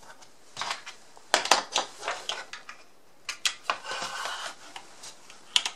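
Plastic clicks and knocks as a radio's desktop charging cradle and its wall-adapter cable are handled and set down on a table. Around the middle there is a short stretch of rubbing.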